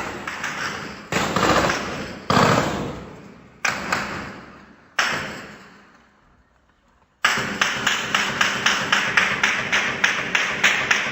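Gunfire: five single shots a little over a second apart, each ringing away, then from about seven seconds in a rapid string of shots about three or four a second.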